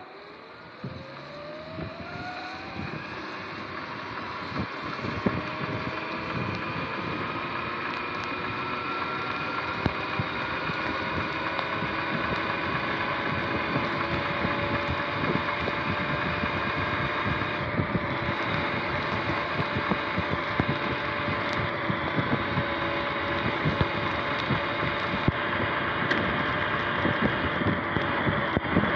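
Sur-Ron X electric dirt bike accelerating: its electric motor and drivetrain give a whine that rises in pitch over the first ten seconds or so, then holds steady at cruising speed. Wind rush and tyre hiss on the wet road grow louder with the speed.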